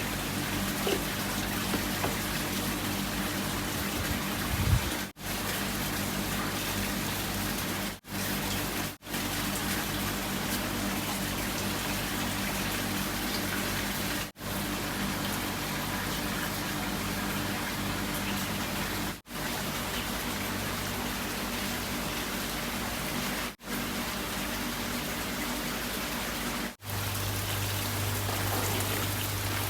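Steady rush of running or splashing water with a low hum underneath, broken by several brief gaps. A short thump comes just under 5 seconds in.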